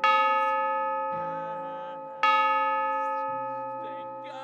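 Roland SPD-30 Octapad playing a bell-like chime patch, struck twice about two seconds apart. Each note rings out and slowly fades over softer accompanying band music.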